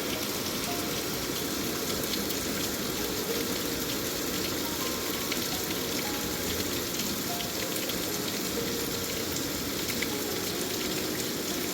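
Steady heavy rain falling, an even wash of drops with no let-up.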